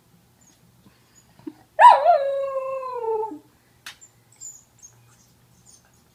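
Corgi giving one drawn-out, whiny howl of about a second and a half, jumping up at the start and then sliding steadily down in pitch: a complaining protest at being kissed. A single sharp click follows.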